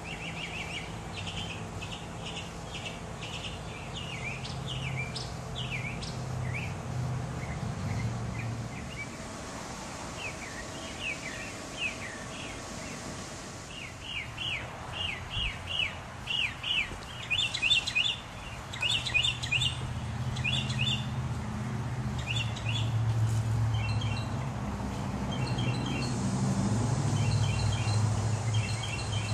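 Backyard songbirds chirping and singing: runs of short, quickly repeated chirps and sweeping notes, thickest in the second half. A low steady rumble runs underneath.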